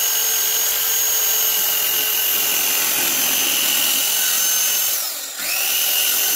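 Corded circular saw running at full speed while cutting 3/4-inch sanded plywood: a loud, steady high whine. About five seconds in the pitch sags briefly, then comes back up.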